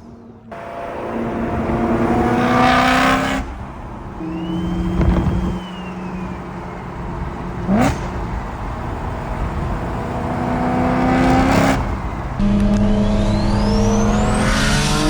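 Turbocharged Infiniti G35's VQ35 V6 pulling hard through the gears, revs climbing and dropping several times. A high turbo whistle rises and falls around the middle, and near the end a long turbo whine climbs with the revs.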